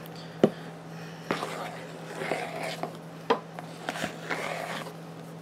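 Wooden spatula folding whipped topping into yogurt in a plastic mixing bowl: soft swishes of the thick mixture, with four sharp taps of the spatula against the side of the bowl.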